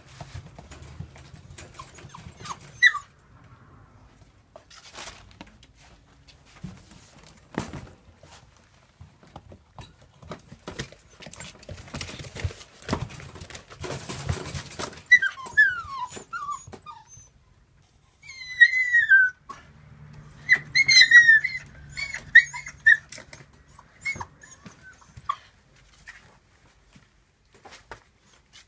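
Seven-week-old rough collie puppies whimpering and yipping in short, high, falling cries that come in clusters, with scattered knocks and scuffling between them.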